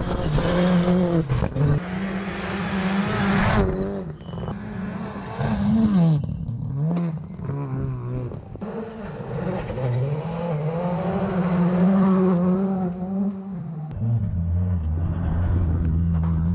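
Rally cars driven flat out on a gravel stage, engines revving high, with the pitch climbing and dropping again and again through gear changes and lifts. Near the end the note settles lower.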